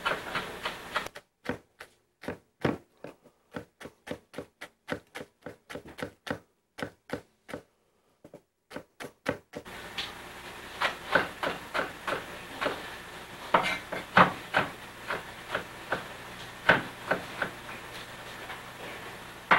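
Chef's knife mincing garlic cloves on a cutting board: a string of irregular knocks of the blade against the board, two or three a second.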